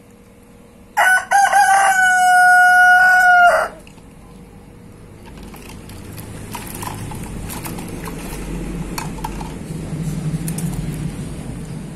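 A rooster crows once, about a second in: a few short broken notes, then one long held note that stops suddenly near the four-second mark. After it come a quieter low rumble and light scattered clicks and splashes.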